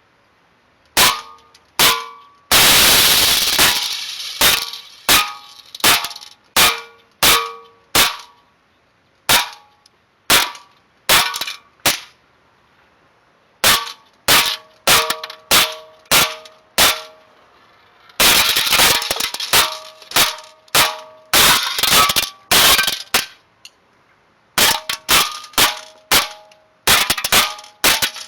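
STI Duty One CO2 blowback airsoft pistol firing shot after shot in quick strings, each a sharp crack with a short metallic ring after it. A longer hissing burst lasting about a second comes about two and a half seconds in.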